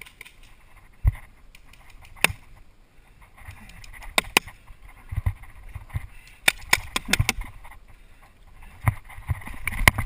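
Paintball markers firing during a game: scattered sharp pops, some single and some in quick strings, with a close burst of shots about six to seven seconds in.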